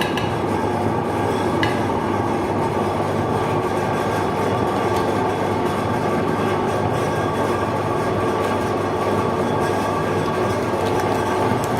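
Electric meat grinder running steadily as ice cream is pushed through it: a constant motor drone with a grinding rattle that does not change.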